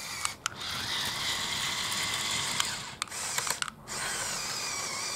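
Electric motors and gearing of a Winner 7119 brick-built remote-control articulated track tractor whining as it drives, cutting out briefly a few times.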